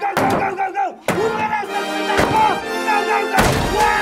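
Three heavy thuds about a second apart as a wooden door is rammed with a helmeted man used as a battering ram. The third thud is the heaviest, as the door gives way. Background music plays under the impacts.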